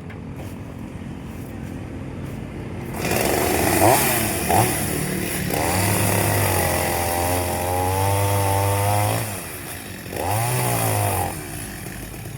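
Chainsaw idling, then revved hard about three seconds in with two quick blips before holding at high revs for several seconds while cutting wood, its pitch wavering under the load. It eases off briefly, revs up once more, and drops back to idle near the end.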